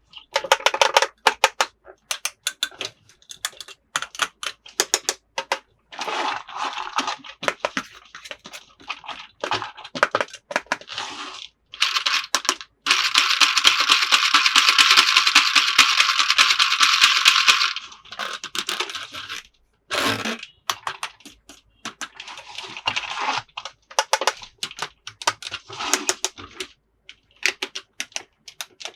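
Toy packaging being handled and opened by hand: rapid clicks, taps and crinkling of plastic and cardboard, with a steady scratchy tearing noise lasting about five seconds midway through.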